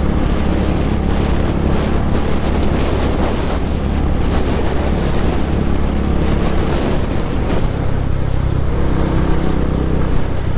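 Motorcycle cruising at highway speed: steady wind rush over the helmet microphone with the engine running underneath.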